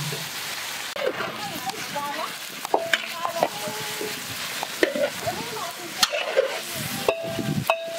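Chicken pieces with oil and ground spices being stirred in a large black iron karahi with a long metal spatula. The hot oil keeps up a steady sizzle, and the spatula scrapes and clanks against the pan several times.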